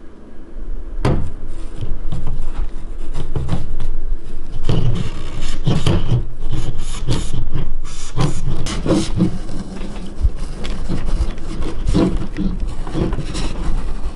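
Heated steel knife blade sawing back and forth across a fishing rod, a rasping scrape with each irregular stroke starting about a second in; the blade struggles to cut through the rod.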